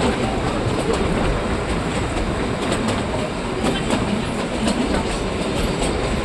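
Kalka–Shimla narrow-gauge toy train running: a steady rumble with the clickety-clack of wheels over rail joints and scattered sharp clicks.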